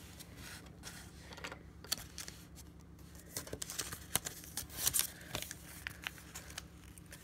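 Paper instruction leaflet being unfolded and handled, with scattered crinkles and soft taps over a faint low hum.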